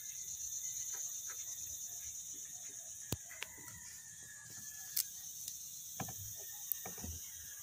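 Insects chirring steadily in a high-pitched, fast-pulsing drone, with a few sharp separate clicks and faint low calls of some animal underneath.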